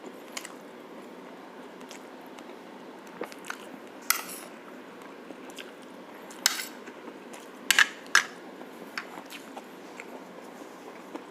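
Utensils clinking and scraping against a plate in scattered sharp clicks, the loudest a cluster about two-thirds of the way through, with chewing while eating braised pork shank, over steady background noise.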